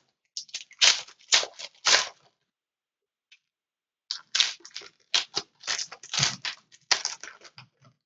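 Foil trading-card pack being torn open and crinkled by hand: two bouts of sharp crackling, the second starting about four seconds in after a short quiet gap.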